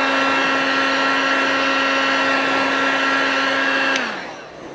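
Electric heat gun blowing steadily, its fan motor whining over rushing air while it shrinks a solder-seal wire connector; about four seconds in it is switched off and the motor spins down with a falling pitch.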